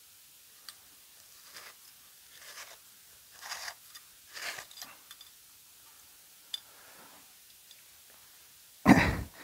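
Hands handling and taking apart a small automotive boost gauge: a few small clicks and rustling swishes, then a sudden loud short noise near the end.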